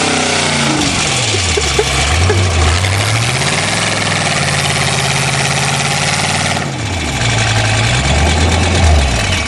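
Car engine being driven hard, its pitch dropping and climbing again twice, over a heavy rushing noise.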